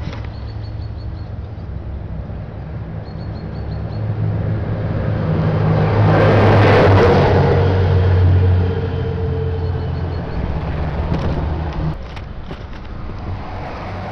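Heavy vehicle's engine passing by: a low hum that builds, is loudest around seven seconds in, then fades away by about twelve seconds.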